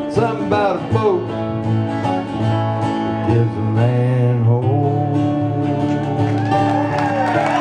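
Live country-style acoustic guitar music with no words: the instrumental ending of a song.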